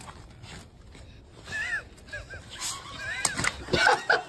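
A dog yelping and whining in short, high, wavering cries, several in quick succession, louder and more crowded together near the end.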